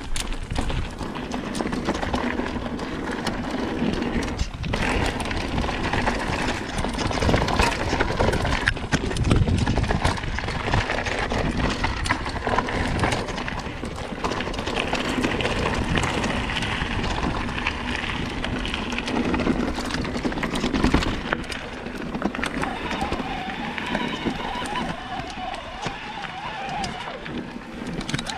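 Mountain bike descending a rough, rocky trail: the tyres roll and crunch over stones while the chain and frame rattle with a rapid, uneven clatter of knocks.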